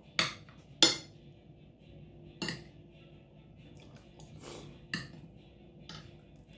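Metal spoon clinking against a glass bowl while eating: about five separate sharp clinks, the loudest about a second in.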